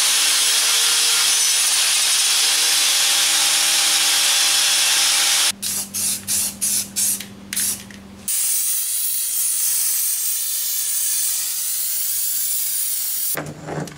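Angle grinder with a flap disc running loud and steady as it grinds down a weld bead on a steel bumper bracket, then several short uneven bursts a little over halfway through. An aerosol spray can then hisses steadily as paint is sprayed onto the bare metal.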